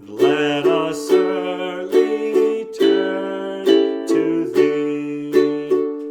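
Ukulele strummed in repeated strokes with chords ringing between them, and a man's voice singing the hymn melody in long held notes underneath.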